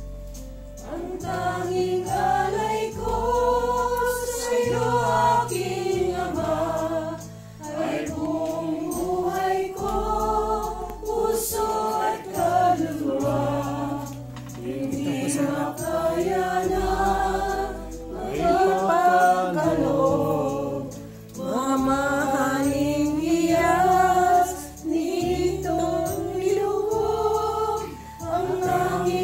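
A group of people singing a hymn together, over chords from an accompaniment, with short breaks between lines.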